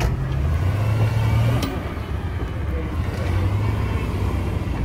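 Off-road vehicle's engine running steadily at low revs as it crawls through rough ground, its note dipping briefly about one and a half seconds in.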